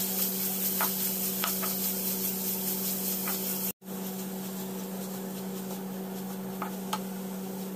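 Sliced onions sizzling in hot coconut oil in a nonstick pan as they are stirred with a wooden spatula, which taps and scrapes against the pan now and then. A steady low hum runs underneath, and the sound cuts out for an instant a little before four seconds in.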